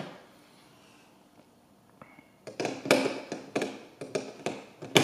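Snap Circuits plastic parts clicking and knocking against the clear plastic base grid as pieces are handled and snapped into place: one click at the start, then after a quiet couple of seconds a quick run of sharp clicks and taps.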